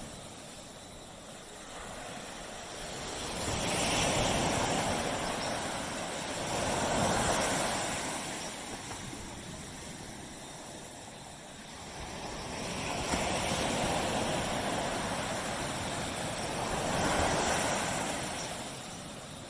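Small waves breaking and washing up a beach, in slow swells of surf noise every few seconds, four surges in all.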